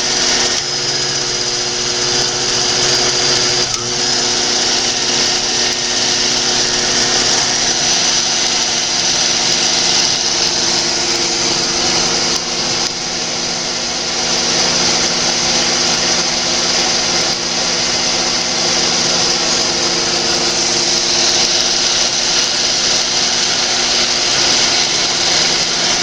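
Wittnauer Cine-Twin 8mm camera/projector running as a projector, giving a steady mechanical whir from its motor and film transport.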